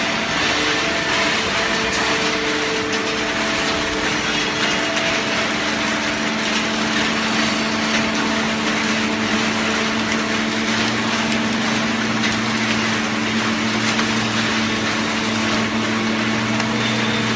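Automatic paper box baler running: a steady, loud mechanical noise with a hiss and several hum tones that shift at a few points, and a deeper hum joining about ten seconds in.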